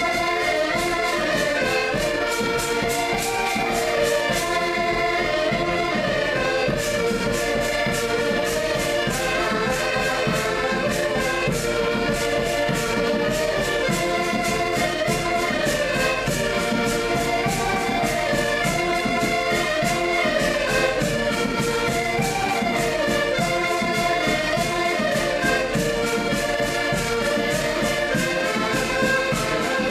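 Portuguese folk band playing a lively tune on diatonic button accordions over a steady beat on a large rope-tensioned bass drum (bombo).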